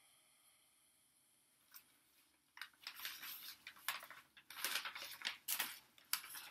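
Packaging of a plant shipment being handled, rustling and crinkling in a quick, irregular run of scrapes that starts about two and a half seconds in.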